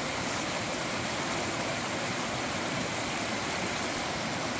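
A mountain river flowing, a steady, even rush of water.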